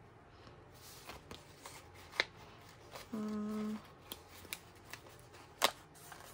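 A paper sticker sheet handled while a sticker is peeled off, with a few sharp clicks of the paper, the loudest near the end. About three seconds in, a person hums a short, steady 'mm'.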